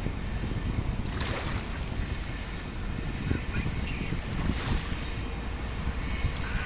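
Wind buffeting the microphone over water lapping around wooden dock pilings, with two louder rushes of hiss about a second in and near five seconds in.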